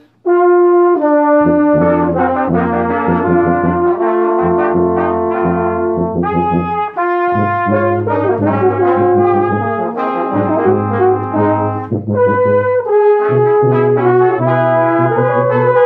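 Brass ensemble playing: trumpets, trombones and horn in sustained chords over a low bass line, coming in again after a momentary break at the start.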